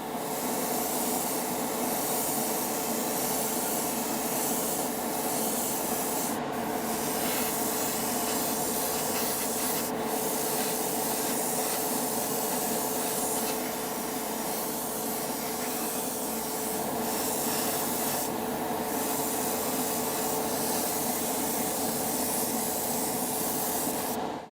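Continuous abrasive sanding on a diecast model car body, with a steady hum underneath; it cuts off abruptly at the very end.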